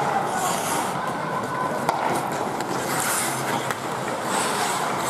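Ice hockey skates scraping and carving on rink ice in a hiss of arena noise, with a few sharp stick clicks.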